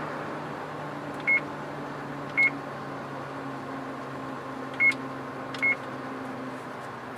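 Four short electronic beeps at one high pitch, the first two about a second apart and the last two just under a second apart, over the steady low hum of the truck's engine heard from the cab.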